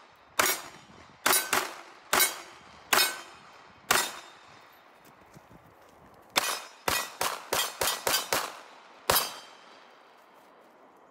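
Glock pistol fired repeatedly: a few spaced shots, a short pause, then a fast string of about eight shots and one more, with steel targets ringing on some hits.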